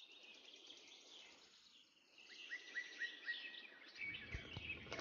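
Birds chirping in the background, one giving a run of about six quick repeated chirps a couple of seconds in. Near the end come light clicks and knocks of pebbles being set into a glass bowl.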